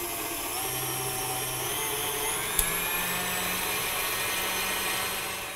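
Electric stand mixer motor running steadily, its flat beater creaming butter with white and brown sugar in a steel bowl. A single sharp click about two and a half seconds in, and the mixer stops near the end.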